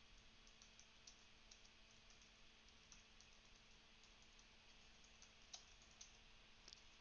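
Faint, irregular typing on a computer keyboard as a prompt is typed in.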